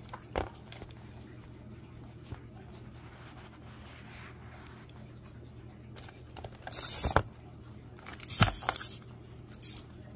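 Two loud, harsh bursts about a second and a half apart, each with a dull thump on the plastic tub floor, then a smaller one: an African bullfrog lunging at a cockroach.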